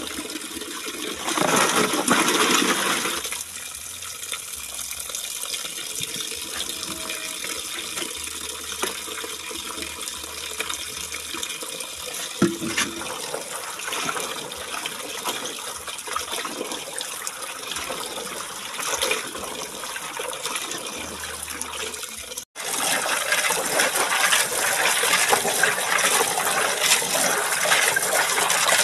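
Water running from a tap into a plastic basin, splashing steadily as hands rinse and rub clams in it. There is a brief drop-out about three-quarters of the way through, and after it the running water is louder.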